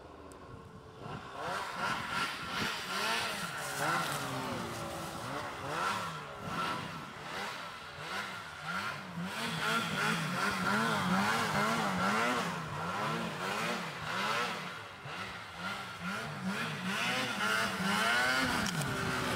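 Ski-Doo snowmobile engine running under load through deep snow. It starts about a second in and revs up and down over and over.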